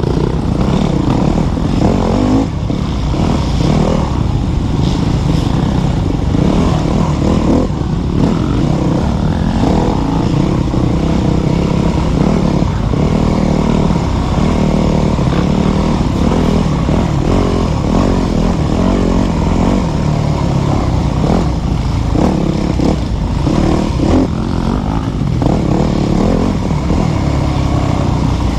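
Dirt bike engine running hard and revving up and down continuously as the bike is ridden along tight wooded singletrack.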